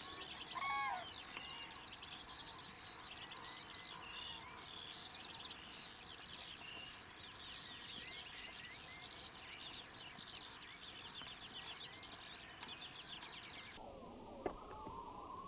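Dense chorus of many small songbirds chirping and trilling, with one louder, curling call about a second in. Near the end the sound changes abruptly to different, lower gliding calls with a single sharp click.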